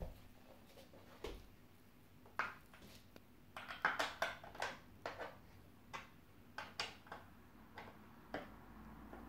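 Small scrench clinking and clicking against the bar nuts and plastic clutch side cover of a Husqvarna 395XP chainsaw. It makes a string of irregular sharp clicks and knocks, busiest about four seconds in.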